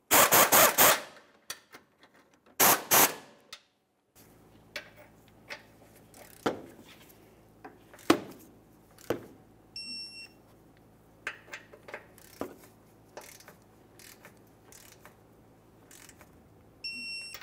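A ratchet clicks in two quick runs as the sway bar bracket bolts are snugged up. Then the bolts are torqued to 45 ft-lb with a click-free torque wrench that gives a short high beep twice, about seven seconds apart, as each bolt reaches torque.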